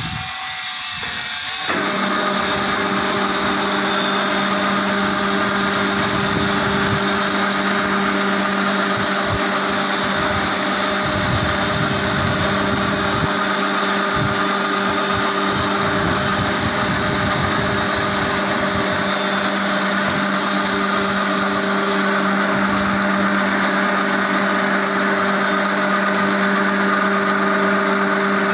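Construction mini lift's electric hoist motor starting up about two seconds in and running with a steady hum as it winds in its cable, raising a loaded material pan.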